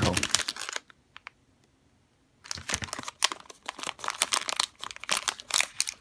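Clear plastic cable bags crinkling and rustling as they are handled. The crinkling stops for about a second and a half near the start, then runs on continuously.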